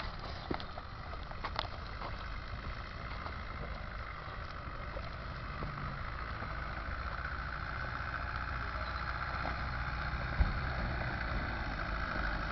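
Land Rover 110 engine running under load as it crawls up a rocky track, its rumble growing steadily louder as it approaches. A single sharp knock about ten seconds in.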